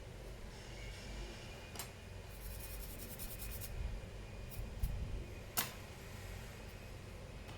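Light handling noise from working on a laptop's internals: a sharp click about two seconds in, a short stretch of fast ticking, then a louder click past halfway, over a low hum.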